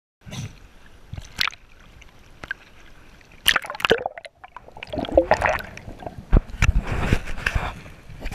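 Muffled underwater sloshing and gurgling around a submerged camera, with irregular knocks and splashes. The sound starts abruptly and is busiest in the second half.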